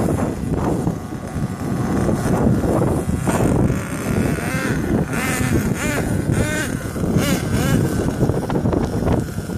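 HPI Savage XL radio-controlled monster truck's engine revving up and down several times, its pitch rising and falling, as the truck pulls away.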